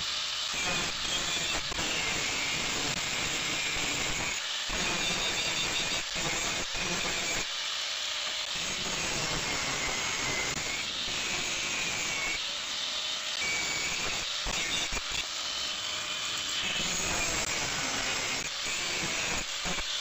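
Electric angle grinder grinding the edges of a thick steel plate: a steady hissing grind with a high whine that wavers in pitch.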